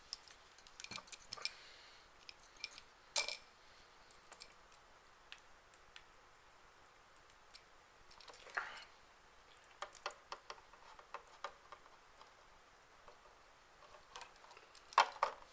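Scattered light clicks and taps of small rotor-head parts being handled and fitted by hand, the sharpest about three seconds in and another near the end.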